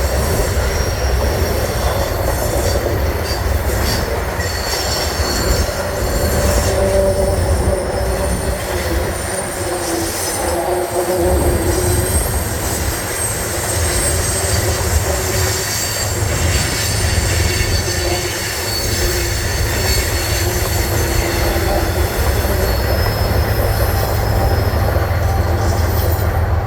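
Train cars rolling past close by, with the wheels giving off several thin, high-pitched squeals over a steady low rumble.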